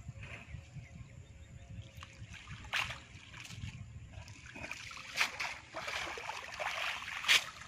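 Shallow river water splashing and sloshing as a cast net is plunged and worked at the water's edge, with a few sharp splashes, the loudest near the end.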